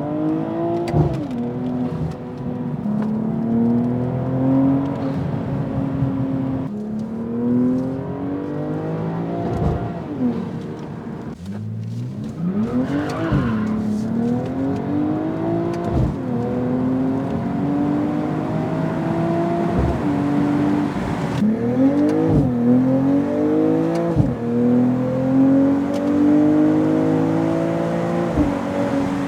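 BMW M240i's B58 turbocharged inline-six with an aftermarket valved sport exhaust, heard from inside the cabin during repeated hard pulls. The engine note climbs in pitch and drops sharply at each gear change or lift of the throttle, about ten times over the stretch.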